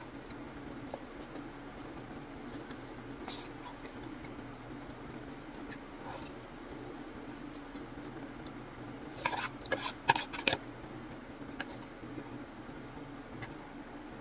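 Close-up eating sounds: wooden chopsticks scraping and tapping in a paper takeout box of pad thai noodles, with soft chewing. A short run of louder clicks and scrapes comes about nine to ten seconds in, over a steady low hum.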